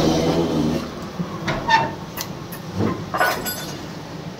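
Electric dough mixer of a vermicelli (shevai) machine running, its paddle turning wet flour dough with a steady hum that is loudest in the first second. Several short clicks and clinks come between about a second and a half and three and a half seconds in.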